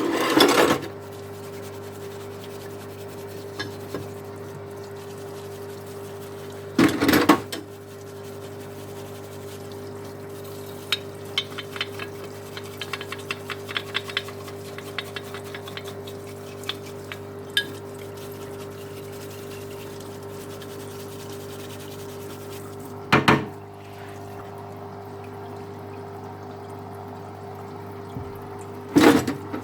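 Parts washer running, its pump humming steadily as cleaning fluid pours over the nail gun parts, with small metal parts clinking against the tray in a run of light clicks. Four short, loud rushes of noise break in, one near the start, then at about 7 s, 23 s and just before the end.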